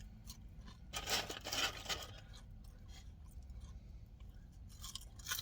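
Eating and food-handling sounds close to the microphone: a short spell of crunching and rustling about a second in, then scattered small mouth and handling clicks.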